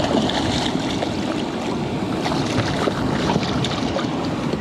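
A hooked smallmouth bass splashing at the surface beside a boat, with scattered small splashes and ticks over steady wind noise on the microphone.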